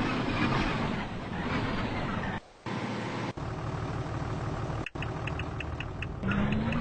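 Road vehicle engine running amid street traffic noise, cutting out briefly twice. In the second half a fast light ticking comes in at about five a second.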